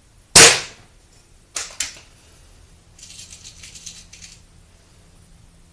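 Mondial RO71 .177 break-barrel spring-piston air pistol firing once: a single sharp crack, the loudest sound, with a short ring after it. Two sharp clicks follow about a second later, then a brief rattle of small clicks as pellets are handled.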